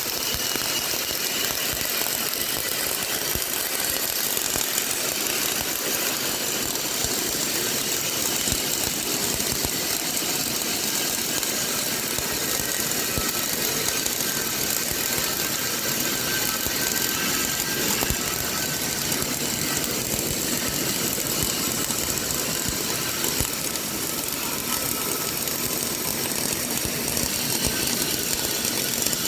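CO2 MIG welding arc crackling steadily as a continuous bead is laid, with no pause.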